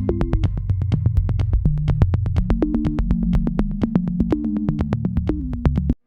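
Electronic background music with a steady beat and synthesizer bass, cutting off suddenly at the end.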